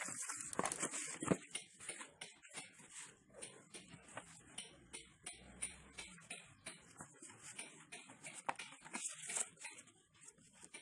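Packaging being handled and opened: an irregular run of rustles, crinkles and small clicks.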